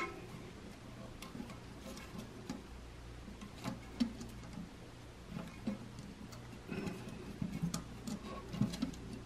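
Quiet, scattered clicks and small knocks of plastic parts inside a toilet tank as a new flapper is pressed firmly down onto the flush-valve seat to seal it.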